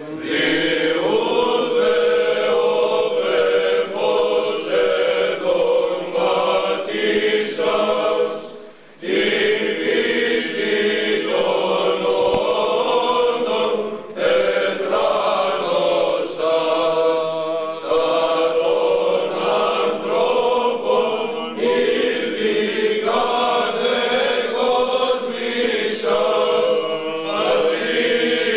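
Voices singing Greek Orthodox Byzantine chant over a steady held note, with a short break in the singing about nine seconds in.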